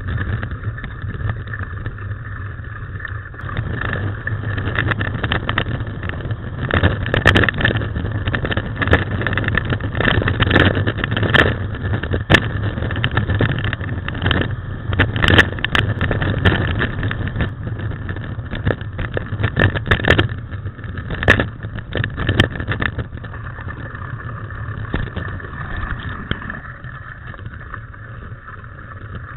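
Mountain bike ridden fast on a dirt forest trail, heard from a camera riding along: a steady rumble of wind and tyres, with frequent knocks and rattles as the bike jolts over bumps, thickest through the middle and easing near the end.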